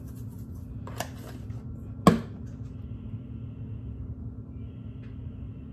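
A light click, then a sharp knock about two seconds in, as a spice shaker is handled and set down on a kitchen countertop, over a steady low hum.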